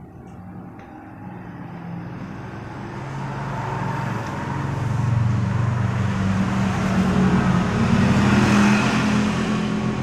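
A motor vehicle approaching and passing: its engine hum grows steadily louder, loudest about eight seconds in, then eases off slightly.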